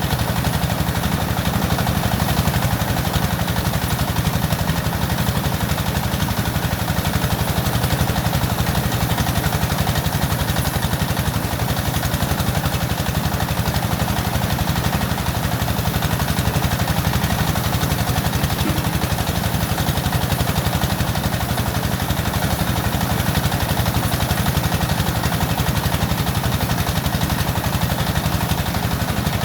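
An engine running steadily, with a fast, even clatter.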